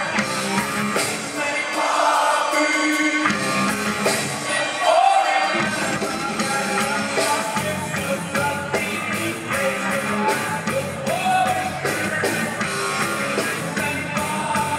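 Live rock band playing: electric bass and drums with a man singing, heard from the audience in a concert hall. The low bass drops out and comes back in the first few seconds, then the band settles into a steady driving beat.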